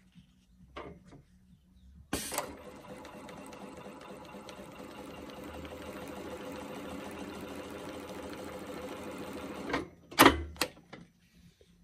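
Strobel 410 furrier's sewing machine starts and runs steadily for about seven and a half seconds as material is fed through it, then stops. Two or three sharp knocks follow just after it stops.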